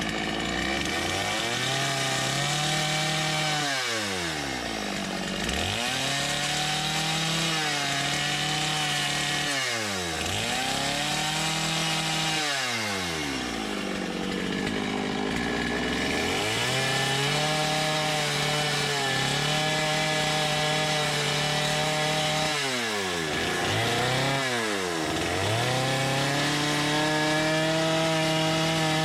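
Gas chainsaw cutting into wood at full throttle, the engine dropping back toward idle and revving up again several times between cuts.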